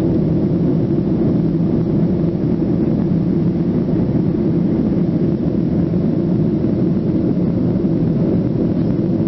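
Jet airliner cabin noise in flight: the engines and rushing air heard inside the passenger cabin at a window seat, a steady low hum with no change.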